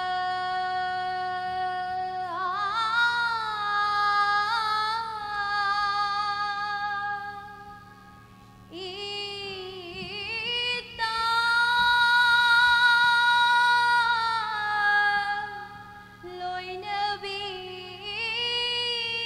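A woman singing a slow song, holding long high notes with a slight vibrato. Her phrases break off briefly about eight seconds in and again around fifteen seconds in. A faint steady low hum runs underneath.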